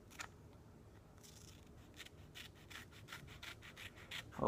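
Scissors snipping through the edge of a sticker-pack wrapper: a faint click, then from about a second in a quick run of small cutting snips, about three a second.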